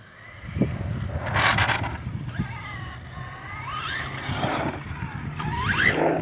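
Electric motor of a Traxxas Slash 2WD RC drag truck whining, its pitch rising and falling with the throttle and climbing sharply near the end, with a short burst of hiss about a second and a half in.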